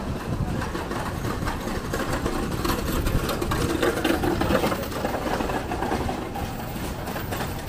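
Street noise with a vehicle engine running.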